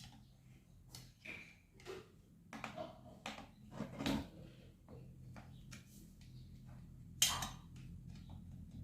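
Irregular light clicks, clinks and knocks of small metal parts and hand tools being handled, with one sharper knock about seven seconds in, over a faint low steady hum.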